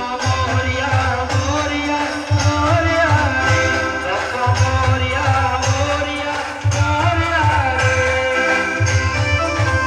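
Maharashtrian brass band playing a song live: horns carry a bending, song-like melody over heavy, steady drum beats.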